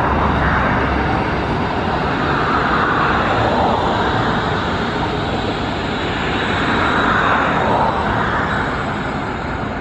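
Steady rushing rumble of a CR400AF-A Fuxing high-speed train rolling past as it pulls into a station, a little heavier in the low end for the first second or so.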